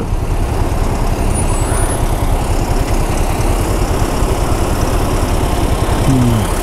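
Royal Enfield Himalayan motorcycle's single-cylinder engine running steadily under way on a rough off-road track, a dense continuous rumble with fast even pulsing.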